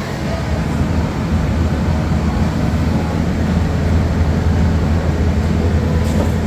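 A steady low mechanical rumble, like an engine or a large machine running, without clear separate events.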